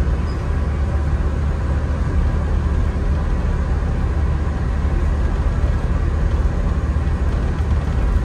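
Amtrak passenger train running, heard from inside the coach as a steady low rumble with an even wash of rolling noise.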